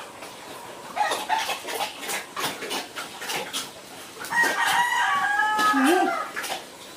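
A rooster crowing once, a call of a little over two seconds starting just past the middle. Before it come short wet clicks and smacks of eating at the bowl and trough.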